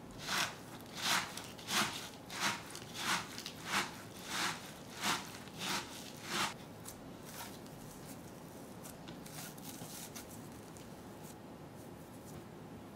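Fingers rubbing and squeezing crumbly shiratama rice flour and silken tofu against a plastic bowl make about ten crunchy rustling strokes, one roughly every two-thirds of a second. After that come fainter, scattered sounds as the mixture comes together into a dough.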